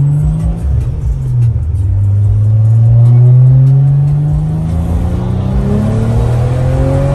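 BMW 335i's turbocharged inline-six heard from inside the cabin under way. Its pitch dips about a second in, then climbs steadily as the car accelerates.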